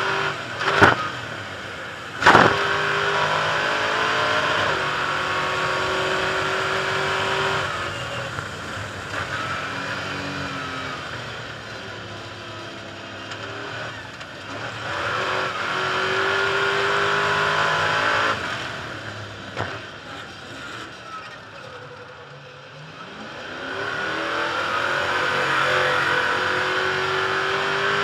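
Onboard sound of a Stadium Super Truck's V8 engine racing: revs climb and hold at full throttle, then drop off and build again, with a quieter lull about three-quarters of the way through. Two sharp bangs in the first few seconds.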